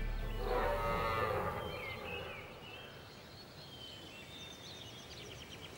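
Woodland ambience with birds chirping and a short trill near the end. A short, low animal call about half a second in is the loudest thing.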